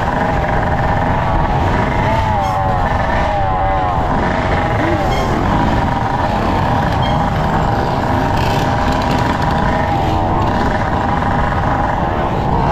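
Yamaha dirt bike engine running while riding, its pitch wavering up and down with the throttle. Heavy wind buffets the helmet-mounted microphone.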